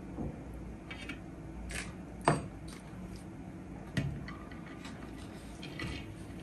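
Metal spoon scraping and tapping in a black plastic takeaway box of biryani, and the box knocking against a ceramic plate as the rice is tipped out onto it. Scattered small clicks, with two sharper knocks about two and four seconds in.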